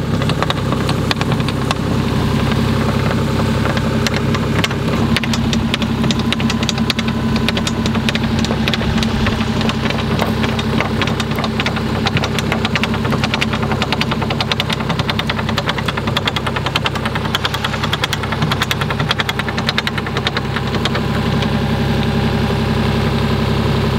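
Engine running steadily at idle, a low hum with a dense, rapid knocking clatter over it.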